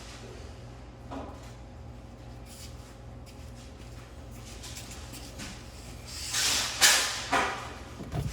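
Handling noises: a small knock about a second in, then a louder run of clattering knocks and rustling near the end, over a steady low hum.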